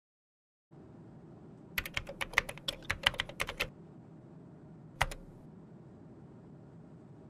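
Computer keyboard typing: a quick run of about a dozen keystrokes as a word is typed, then a single click about a second later as the search is entered. Faint room hiss sets in just before the typing.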